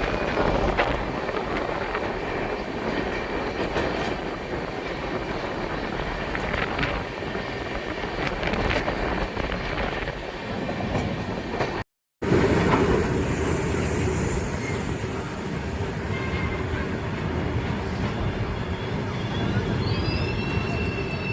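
Passenger train running on the rails, a steady rumble of wheels and coaches. After a break in the sound about twelve seconds in it carries on, with faint high wheel squeals near the end.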